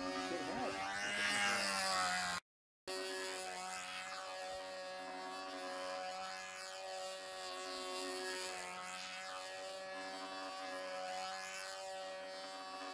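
Control-line stunt model airplane's motor running steadily as the plane flies its laps on the lines, a buzzing hum whose pitch drifts gently up and down. The sound cuts out completely for about half a second near the start.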